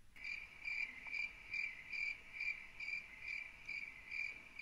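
Cricket chirping at an even pace, a short high chirp a little over twice a second.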